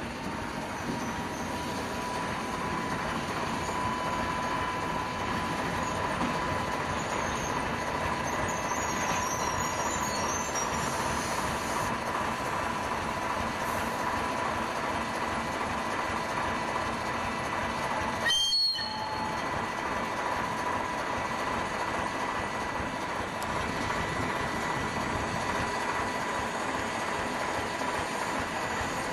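ChME3 diesel-electric shunting locomotive running as it moves slowly along the track: a steady engine drone with a steady high whine over it, which rises slightly at the start and then holds. A short click and break in the sound about two-thirds through.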